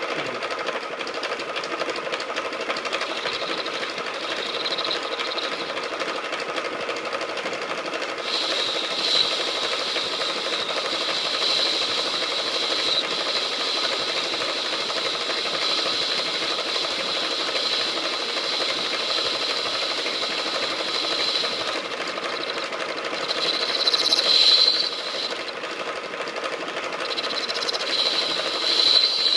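KART E1N metal lathe running, a steady machine hum with a high, steady whine that comes in suddenly about eight seconds in and swells briefly near the end.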